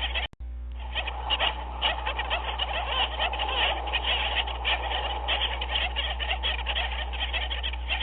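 A penguin colony calling: a dense, continuous chatter of many overlapping short calls over a steady low hum. The sound drops out briefly just after the start.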